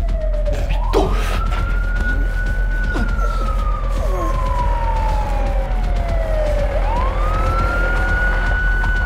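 A siren wailing slowly: its pitch climbs quickly, then sinks over several seconds, and climbs again about seven seconds in. A steady low hum lies under it.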